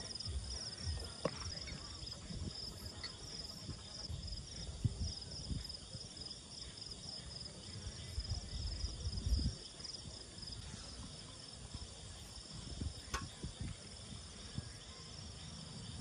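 Night insects chirping in a steady, high, pulsing trill, over a low rumble from the breeze on the microphone, with a couple of faint clicks.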